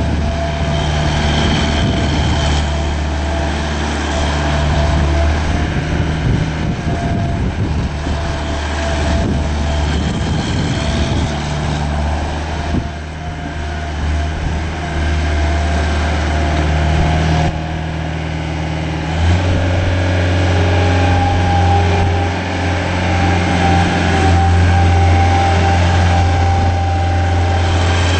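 Gehl 4840 skid steer loader's diesel engine running steadily with a thin mechanical whine over it. About two-thirds of the way through, the engine note changes and grows louder, and the whine steps up slightly in pitch.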